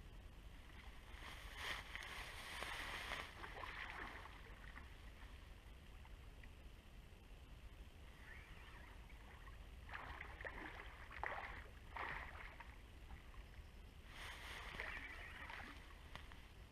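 Water splashing and sloshing in irregular spells of a second or two as a hooked wels catfish is played close to the bank on a bent rod.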